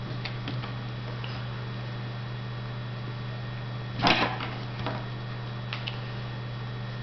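Plastic drinking straws and fishing line handled while a knot is tied, giving faint clicks over a steady low hum. About four seconds in comes a short clatter as a hand reaches down to the wooden tabletop, followed by a few lighter clicks.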